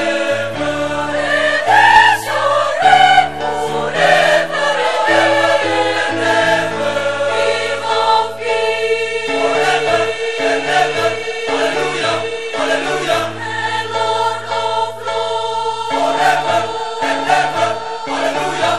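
Large choir singing in harmony, several voice parts holding and changing notes together.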